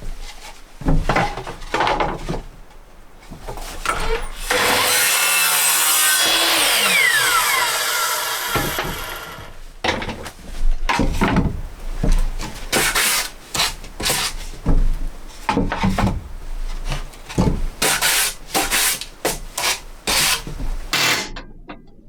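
Timber being worked by hand: a few scattered knocks and scrapes, then several seconds of steady loud rasping, then a long run of quick back-and-forth strokes on the wood, about two a second, that stops near the end.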